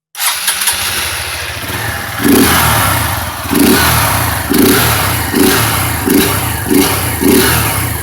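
Honda CG Fan 150 single-cylinder four-stroke motorcycle engine starting and idling, then blipped repeatedly, about once a second from two seconds in. The intake sounds louder and more open than stock because the air box sides are opened up; the paper filter element is kept in place.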